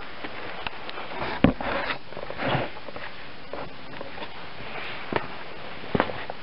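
Scattered knocks and scuffs of a camera being handled and set down on concrete paving, the sharpest knock about a second and a half in, then a person's footsteps close by near the end.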